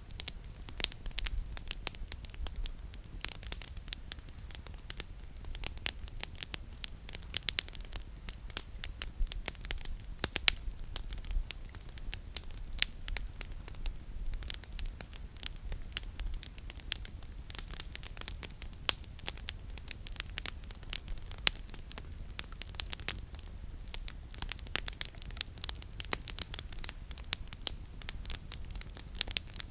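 Campfire of burning firewood crackling, with frequent irregular sharp snaps and pops over a low steady rumble.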